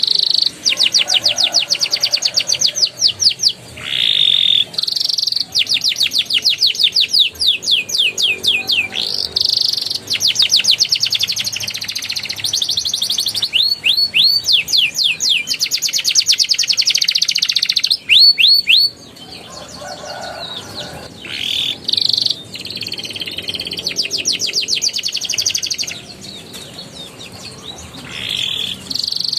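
Young domestic canary singing in fast rolling trills: rapid runs of about ten repeated chirps a second, phrase after phrase, with short breaks between them.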